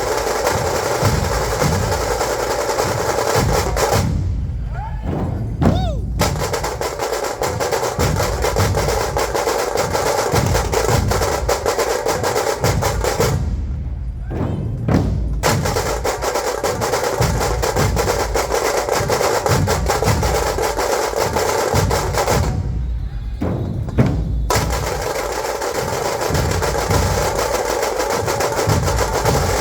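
Dhol-tasha drum ensemble playing a dense, fast rhythm: rapid sharp tasha rolls over heavy dhol beats. The high snare-like rolls drop out three times for about two seconds each while the low drums carry on, then the full ensemble comes back in.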